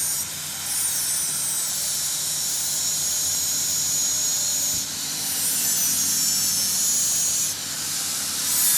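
Metalworking on a truck axle: a steady high hiss in three stretches, with short breaks about five seconds in and again near the end.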